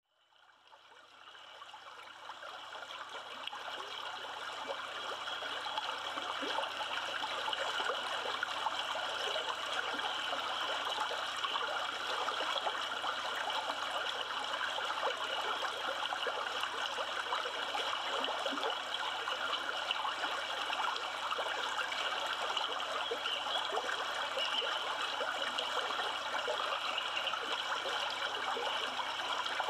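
A river rushing steadily, fading in over the first few seconds.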